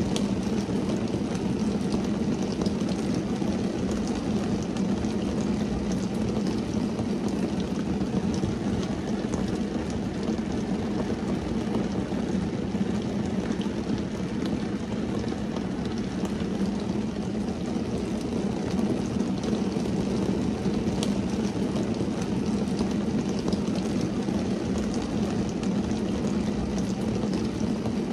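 Steady rain falling on a car's windshield and roof, heard from inside the car: a constant low rumble with faint scattered drop taps.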